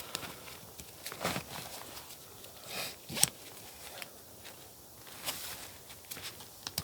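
Scattered rustling and scuffing with a few sharp clicks, about a second in, near three seconds and past five seconds, from someone moving about and handling gear.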